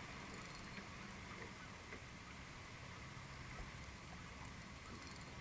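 Faint, steady wash of water, with a few small ticks and clicks.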